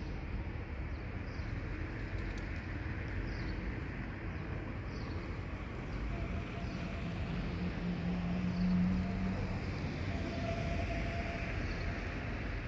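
Outdoor town ambience: a steady low rumble of distant traffic, with an engine hum swelling in the middle and faint short high chirps about once a second.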